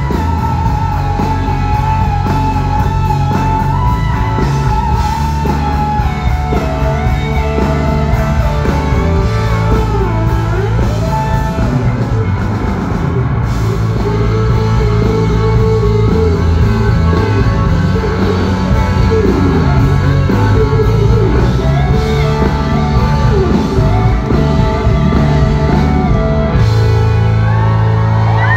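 Live country-rock band playing loud through a concert sound system, with electric guitars over bass and drums.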